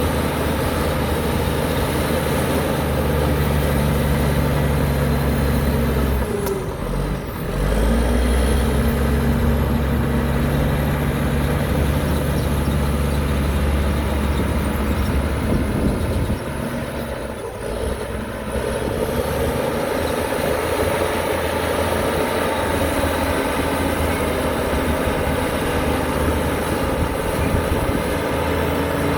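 Heavy diesel engine of earthmoving machinery running steadily. The level dips briefly about six to seven seconds in, and the engine note changes and drops about sixteen seconds in.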